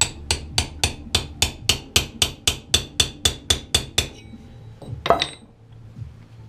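A rapid run of evenly spaced sharp knocks, about fifteen strikes at close to four a second, stopping about four seconds in, followed about a second later by one longer, louder noise.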